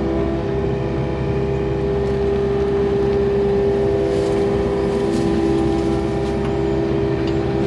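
Yanmar excavator's diesel engine and hydraulics running steadily with a constant hum, heard from inside the operator's cab while the machine digs and swings.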